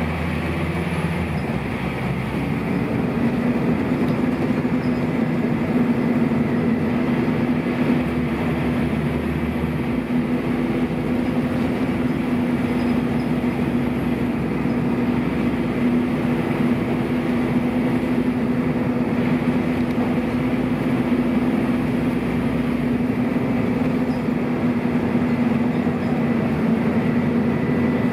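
Scania N230UB bus's nine-litre Scania DC09 five-cylinder diesel running, with its engine cooling fans cutting in about two seconds in and then whirring steadily as a strong, even hum over the engine.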